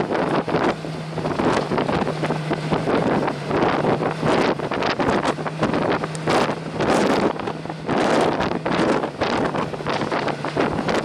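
Strong gusty wind buffeting the microphone in repeated surges, over a faint steady low hum that comes and goes.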